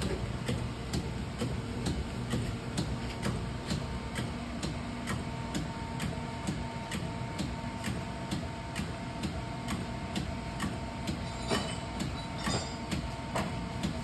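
Chevalier FSG2A818 hydraulic surface grinder running, a steady low hum with regular clicking about twice a second. A few louder clicks come near the end.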